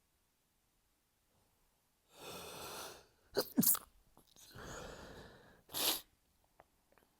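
A person sneezing during an allergy fit. The first sneeze comes as a quick double burst, and a second sneeze follows about two seconds later, each after a long noisy breath in.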